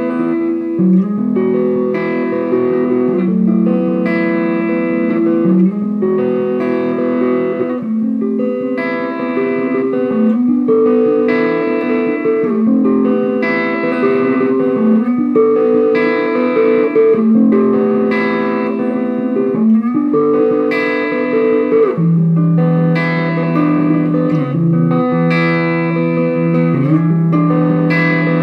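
Gibson Les Paul Custom electric guitar played through a Bugera V5 tube amp on a crunch (light overdrive) setting. Chords and double-stops are struck and left to ring, changing every second or two.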